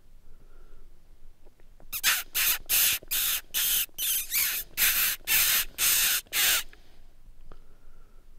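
A hunter's lip squeaks, the kissing "lip smacking" used to mimic small prey and coax a coyote in: about a dozen short, hissy squeaks in a quick even series, starting about two seconds in and stopping a second or two before the end.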